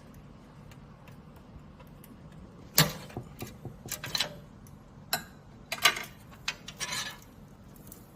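Handling noise from a PC case and its front-panel cables: a run of sharp clicks and short rattling scrapes starting a little under three seconds in and stopping about seven seconds in, loudest at the first click and again near six seconds.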